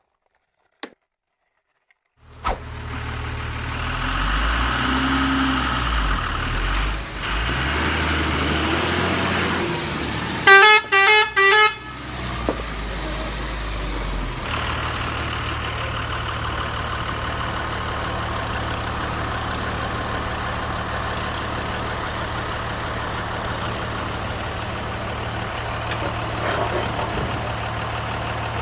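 Truck engine running, shifting in pitch at first, then settling to a steady idle, with three short horn honks about ten seconds in.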